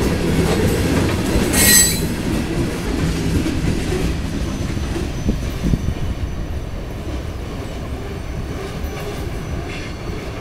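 CSX covered hopper cars rolling past with a steady rumble of wheels on rail, and a brief high-pitched wheel squeal about two seconds in. The rolling sound fades in the second half as the train moves away.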